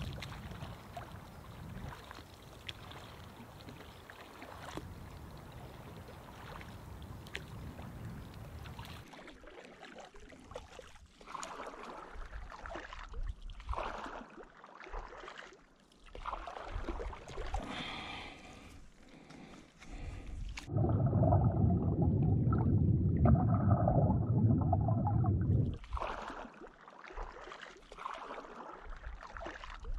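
Lake water splashing and gurgling around a log raft as it is pushed along with a pole, with rushing wind-like noise on the microphone. The noise is steadier at first, turns to uneven splashes and knocks, and a loud rushing stretch comes a little past the middle.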